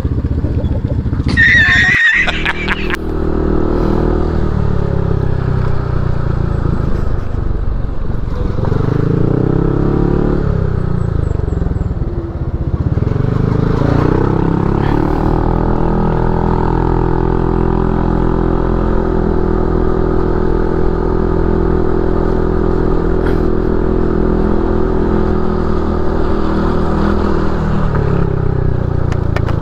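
Motorcycle engine running steadily while riding, its pitch dropping and rising again as it slows and picks up speed. A brief shrill sound comes about two seconds in.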